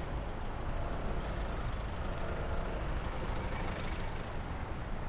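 Steady road traffic close around a bicycle: vehicle engines and tyre noise on the road, with a low rumble of wind on the microphone.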